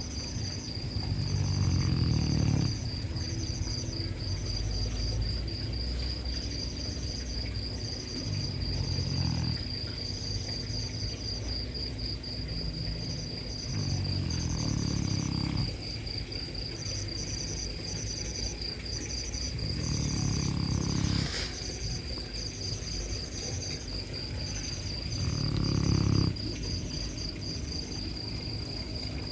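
A sleeping dog snoring: five long, low snores, one every five to six seconds. A steady high-pitched trill runs underneath.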